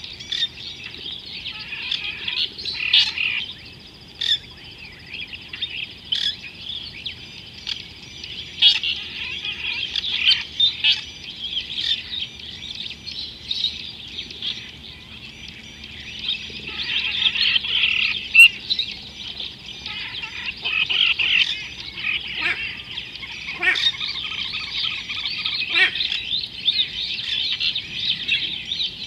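A dense chorus of many birds chirping and calling without a break, with frequent louder individual calls standing out over the din.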